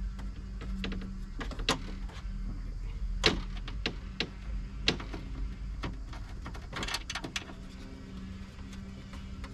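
Irregular clicks, knocks and metallic clinks of hands working on the power window parts inside a car door with its trim panel off, over a low hum that comes and goes.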